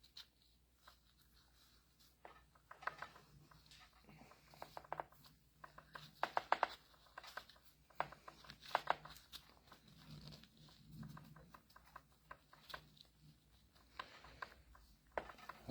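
Scattered light clicks, taps and rustling from hands handling small hydraulic pump parts during reassembly, with a faint low hum underneath.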